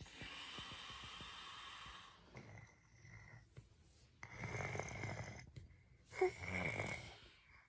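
A man snoring in his sleep: about four snoring breaths a second or so apart, the last two louder, with a low rumble.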